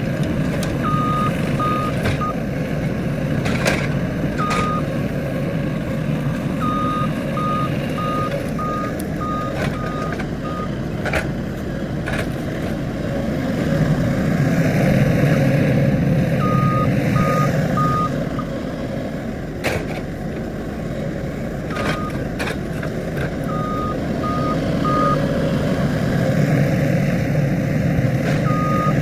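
Skid steer running and maneuvering, engine getting louder for a few seconds midway, with its backup alarm sounding runs of short, evenly spaced beeps that start and stop as it shifts between reverse and forward. A few sharp clanks are heard along the way.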